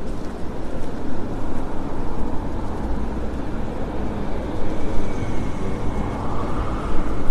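Street traffic and a steady low rumble of wind on the microphone from a moving city bicycle, with a faint whine rising near the end.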